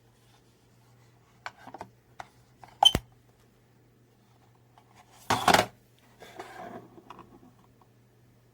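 Handling noises of small hard objects: a few light clicks, one sharp click about three seconds in, then a brief loud scrape followed by rustling, over a faint steady low hum.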